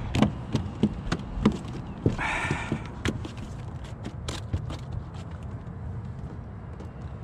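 Irregular knocks and taps of a landing net and a caught bass being handled on a bass boat's carpeted deck, thickest in the first second and a half, over a steady low rumble.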